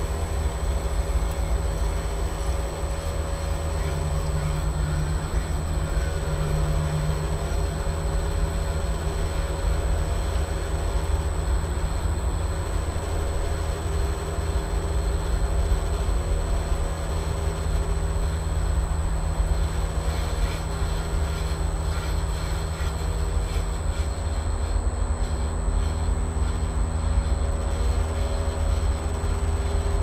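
Vaillant aroTHERM plus 7 kW air-source heat pump outdoor unit running with a steady low hum and a few held tones.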